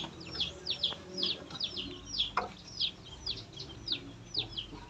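Young poultry peeping over and over: short, high, falling peeps, about two to three a second. A single short knock comes about two seconds in.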